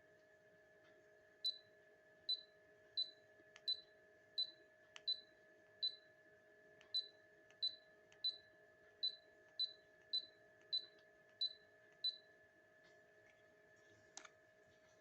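An electronic device giving short, high beeps, sixteen of them, roughly one every two-thirds of a second, which stop about twelve seconds in. A single sharp click comes near the end, over a faint steady hum.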